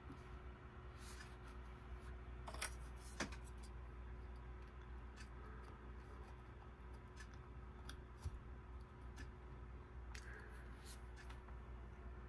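Scattered light clicks and handling noise from pressing the Flipper Zero's buttons and handling the Wi-Fi development board, over a faint steady hum. The two sharpest clicks come a little over two and a half seconds in, about half a second apart.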